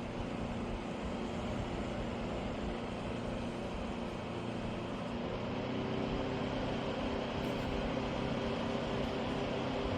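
Portable evaporative air cooler running: a steady fan whoosh with a motor hum underneath, which gets a little louder and higher about halfway through.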